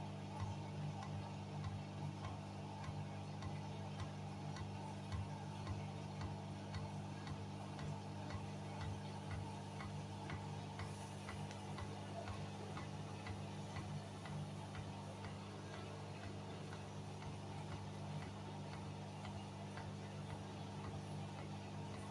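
Hoover washing machine running with a steady low hum and a light, regular ticking about twice a second.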